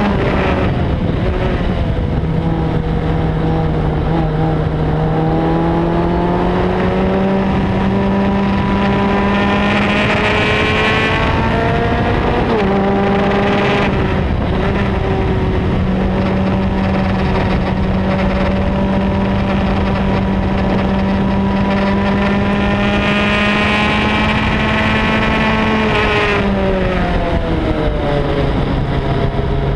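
Onboard sound of a Formula Speed 2.0 open-wheel race car's engine pulling under throttle, its pitch climbing slowly, dropping sharply on an upshift about twelve seconds in, then holding high and steady before falling away near the end as the car slows. A steady rush of wind and tyre noise runs underneath.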